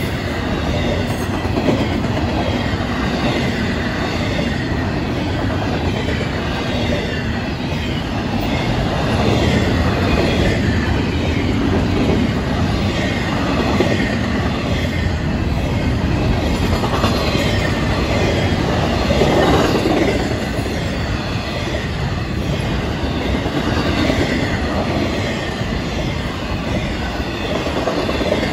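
Florida East Coast Railway intermodal freight train rolling steadily past: double-stack container well cars and trailer flatcars rumbling and clattering over the rails, with faint high wheel squeal.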